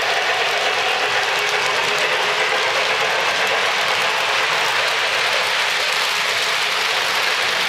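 O-gauge model trains running on Lionel Fastrack: a steady whir of small electric motors and gearing, mixed with the rattle of wheels on the hollow plastic-roadbed track.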